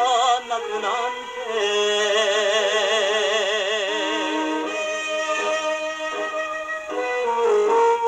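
Instrumental passage of a 1950s Japanese popular song on a 78 rpm record, a wavering vibrato melody over accompaniment, played acoustically through the soundbox of a portable military phonograph with a steel needle.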